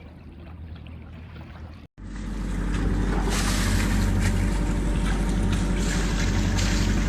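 A sailboat under way: its engine drones steadily under the rush of water and wind. After a brief break about two seconds in, the drone and rush are much louder.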